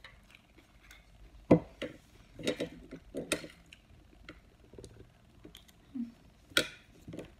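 Spoon and fork clinking and scraping on a plate during eating, with chewing in between. A sharp clink about one and a half seconds in is the loudest, with several more later.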